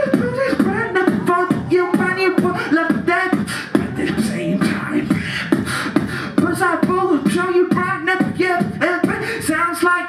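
Beatboxing amplified through a stage microphone and PA: fast, steady drum-like clicks and hisses over repeated low falling bass sounds.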